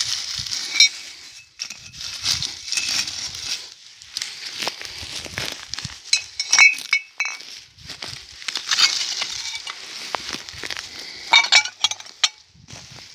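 Old glass bottles clinking against each other in three short bursts of ringing pings while being pulled from the ground and put into a wicker basket, over the crackle and rustle of dry moss and twigs being handled.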